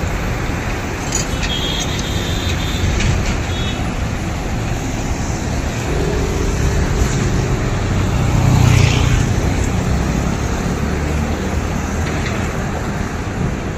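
Light road traffic: a steady rumble of road noise, with a motorbike approaching and passing close, loudest about two-thirds of the way through.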